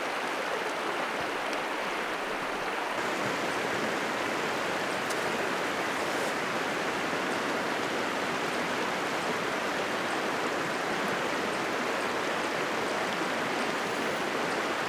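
Shallow river running over rocks: a steady, even rush of water.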